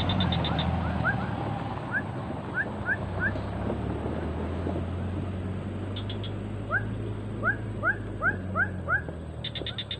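An animal giving short rising squeaky calls, a few scattered at first and then five in quick succession near the end, over a steady low hum, with a few brief runs of rapid high ticks.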